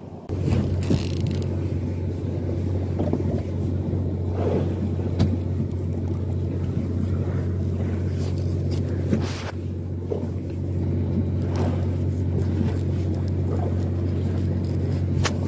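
A fishing boat's engine giving a steady low hum, with scattered short knocks and scrapes close by as saury is cut up for squid bait.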